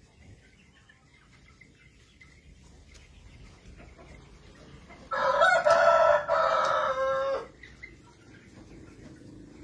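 Rooster crowing once, about five seconds in, a single crow lasting about two and a half seconds.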